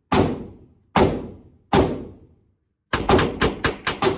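HK SP5K firing semi-automatic, echoing in an enclosed range: three single shots about three-quarters of a second apart, then a fast string of about seven shots from rapid trigger taps rather than full auto.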